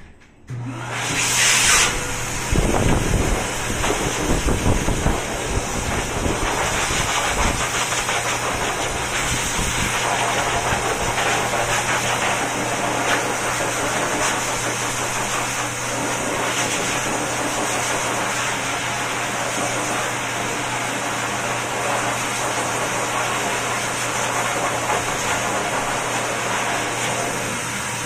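Hand-held pet grooming blow dryer switched on about half a second in and running steadily: a constant motor hum under a rush of blown air, gustier in the first few seconds.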